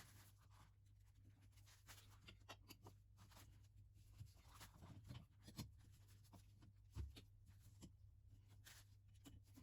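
Near silence: room tone with a low steady hum and scattered faint clicks and taps, two slightly stronger soft thumps in the second half.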